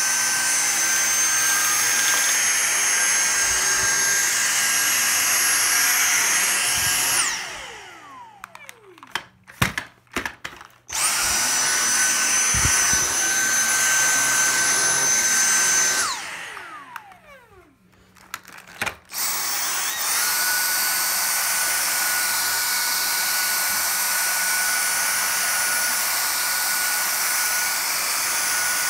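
Dyson cordless stick vacuums running on carpet with a steady high-pitched motor whine. Twice the motor is switched off and winds down in falling pitch, a few clicks and knocks follow, and a vacuum starts up again at full whine.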